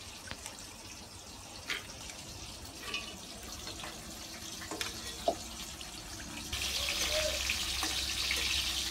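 Soaked chana dal tipped from a steel bowl into an aluminium pressure cooker, with a few light knocks against the metal. About six and a half seconds in, a steady hiss starts and runs on.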